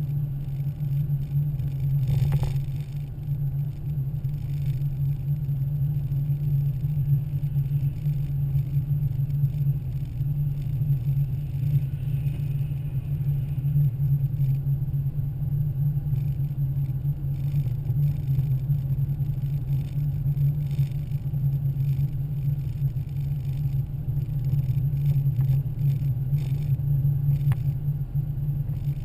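Steady low rumble of a car driving over slushy pavement, heard from inside the cabin: engine and tyre noise. There is one brief knock about two seconds in.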